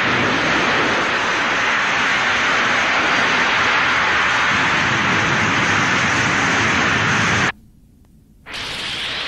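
Sound effect of a starship jumping into hyperspace: a loud, steady rush of noise like a jet engine, which cuts off suddenly near the end. After about a second of near silence, a softer rushing noise with a faint rising whine comes back.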